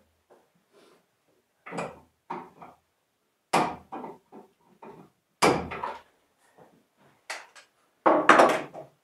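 Irregular knocks and clatters of tools being worked against a plywood wall and wooden studs, with loud sharp knocks about three and a half and five and a half seconds in and a cluster of them near the end.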